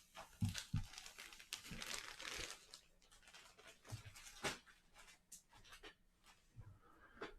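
Crinkling and rustling of packaging being handled, with a few soft knocks and clicks.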